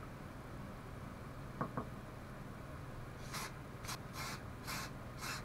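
Aerosol can of black spray paint giving a run of short hissing bursts, about five in two seconds, starting a little past halfway. Two quick clicks come before, about a second and a half in.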